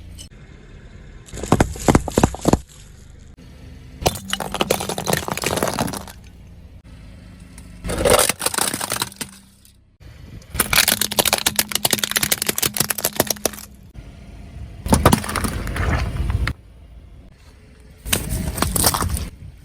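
Crunchy objects cracking and breaking as they are crushed under a car's tyres, in six separate bursts of a second or two each.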